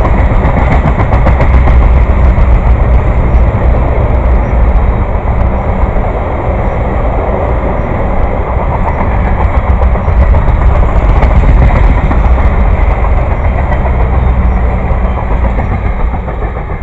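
Freight cars of the Tropicana juice train rolling past at close range: a loud, steady rumble and clatter of steel wheels on rail, easing a little near the end.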